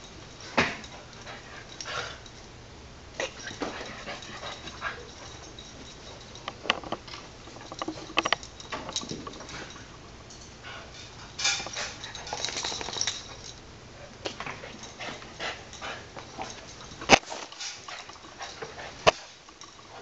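Boston terrier playing rough with a soft toy: scattered short dog noises and scuffles, busiest about halfway through, with two sharp knocks near the end.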